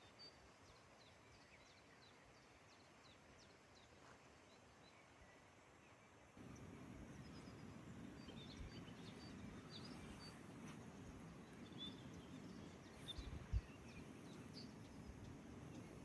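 Faint outdoor ambience of small birds chirping, with short high notes repeated throughout. About six seconds in, a low even rushing noise comes in suddenly and stays, and a single soft knock sounds near the end.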